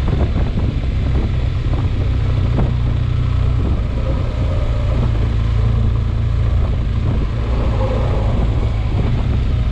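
BMW adventure motorcycle running at low road speed and easing off, a steady low rumble of engine and wind.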